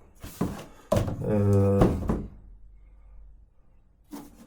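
A few sharp knocks of handling, then a man's voice holding a drawn-out hesitant 'eee' for about a second and a half.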